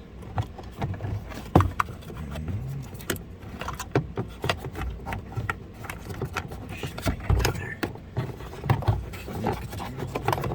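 Irregular clicks and knocks of a small remote control door lock receiver module being handled and fitted into its mounting clip, with a sharp knock about one and a half seconds in.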